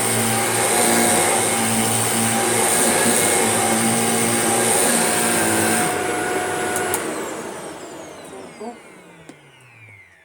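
Shark vacuum cleaner running steadily, then switched off about six seconds in, its motor winding down with a falling whine over the next few seconds.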